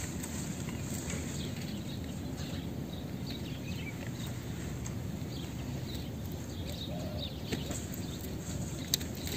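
Outdoor ambience: a steady low rumbling noise with faint, scattered high chirps, and one sharp click near the end.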